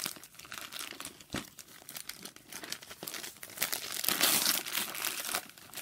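Wrapping paper crinkling and tearing as a gift-wrapped VHS tape is unwrapped by hand, with the crackling growing louder and busier about two-thirds of the way in.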